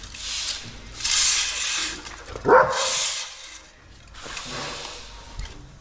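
A dog gives one short bark about two and a half seconds in, among several rustling, hissing sweeps of stall bedding being moved.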